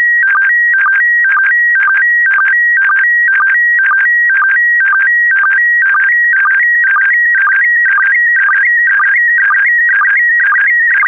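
Slow-scan television (SSTV) signal in PD120 mode: a stream of audio tones stepping between a higher and a lower pitch, with a short sync pulse about twice a second marking each scan line.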